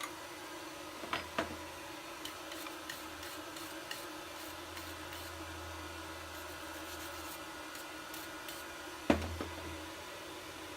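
Light clicks and taps of hand tools on metal while a blacksmith works the hot end of the piece, then one sharp knock about nine seconds in, over a steady low hum.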